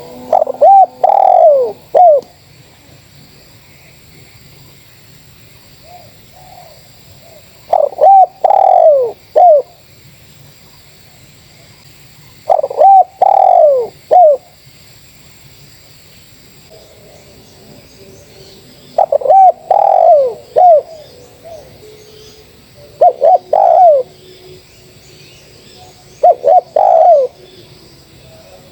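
Spotted dove cooing: six loud coo phrases, one every four to six seconds, with fainter cooing from another dove in between.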